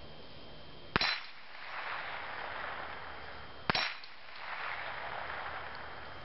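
Two .22 rimfire rifle shots from a Remington Nylon 66, about two and a half seconds apart. Each bullet hits a steel dueling-tree plate with a short metallic clang and knocks it over to the other side of the post.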